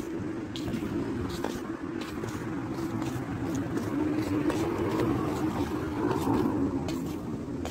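Steady vehicle running noise, like a car engine and road rumble, with scattered light clicks.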